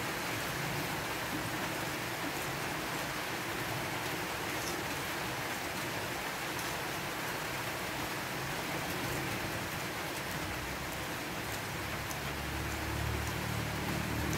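A steady rushing hiss with a few faint clicks of a fork on a plate; a low hum comes in near the end.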